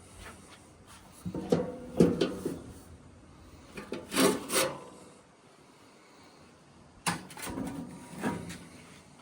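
Intermittent handling noises: rubbing or scraping with knocks, in several separate bursts and a quiet pause in the middle.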